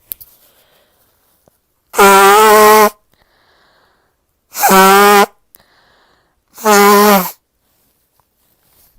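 Three loud, honking nose blows, each lasting about a second, with a steady low pitch: a person clearing a nose blocked by allergies.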